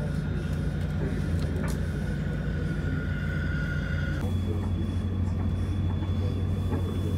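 Antonov An-24RV's Ivchenko AI-24 turboprop engines running, heard inside the cabin while the aircraft taxis: a steady low hum with a thin high whine. Just past halfway the whine cuts out and a higher one takes over.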